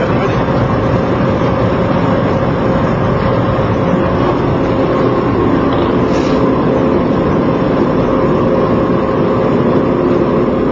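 A vehicle engine running steadily with a constant hum, loud and unbroken throughout.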